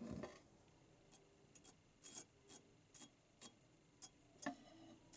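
A soft knock, then faint short scrapes of a hand tool against the rusty tang of an old hand sickle, about two a second.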